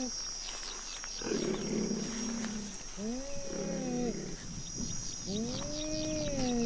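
A big cat calling: about three drawn-out, pitched calls, each rising and then falling over about a second, one every second and a half or so. A steady high hiss with small quick chirps runs underneath.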